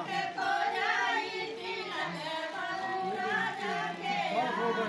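Several high voices singing together, in long, held notes.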